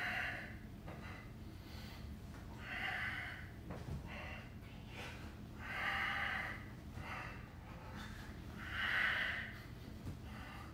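A man breathing out hard with each straddle-up sit-up, one hissing exhale about every three seconds, four in all.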